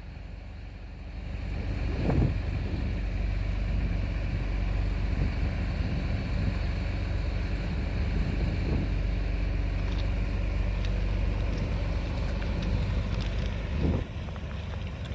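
Heavy equipment engine running, its pitch rising and falling several times as it is revved.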